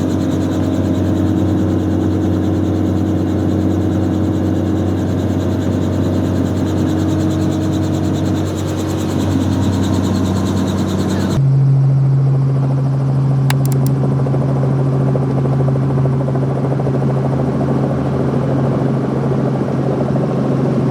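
Helicopter engine and rotor drone, steady and loud. It changes abruptly about eleven seconds in to a stronger, lower-pitched hum.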